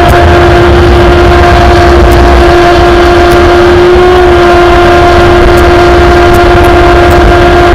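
Revolt 30 radio-controlled boat running at speed: a steady high whine from its motor and propeller that lifts slightly in pitch about four seconds in. It runs over the hiss of the rooster-tail spray and a low rumble of wind on the on-board microphone.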